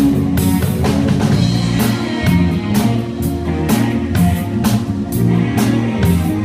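Live rock band playing, with drum kit and electric guitar over a steady beat, heard through the on-stage monitor mix.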